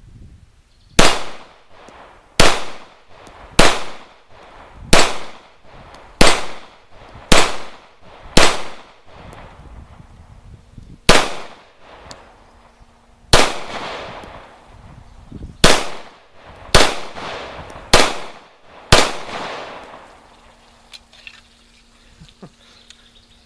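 Zastava EZ9 9mm semi-automatic pistol firing thirteen loud single shots: seven at a steady pace of about one a second, a pause of about two and a half seconds, then six more at the same pace.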